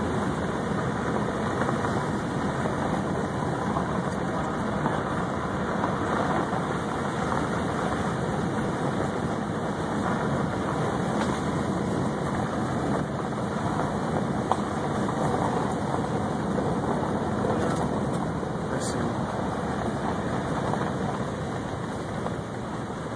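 Steady engine and tyre noise heard from inside a car driving along a gravel road.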